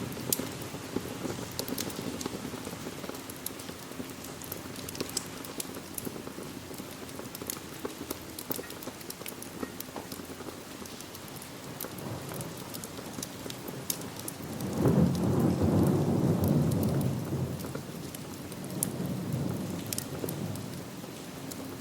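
Steady rain mixed with the crackling and popping of a wood fire in a fireplace. A low rumble of thunder swells about fifteen seconds in and fades, followed by a fainter rumble near the end.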